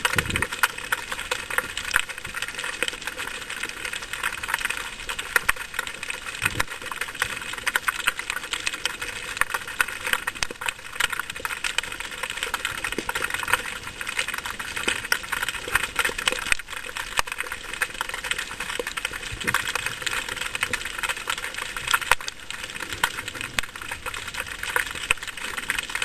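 Underwater ambience: a steady, dense crackle of many tiny clicks, with a low thump just after the start and another about six and a half seconds in.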